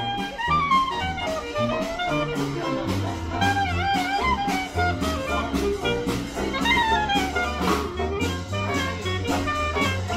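A Dixieland jazz band playing live: horn melody lines over a steady stepping bass, with a regular strummed or struck beat.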